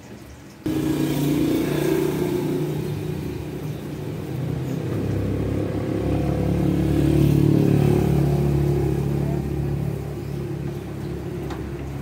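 A motor engine running. It comes in suddenly about a second in, then swells and eases off, loudest around the middle.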